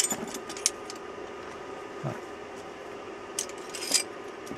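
Tools and small items being handled and set down: a few light clicks and rustles in the first second, a soft knock about two seconds in and a couple more light clicks later, over a steady low hum.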